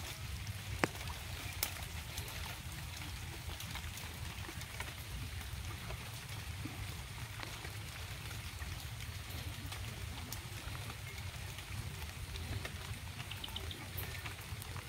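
Steady hiss of rain over a low rumble, with two sharp clicks in the first two seconds.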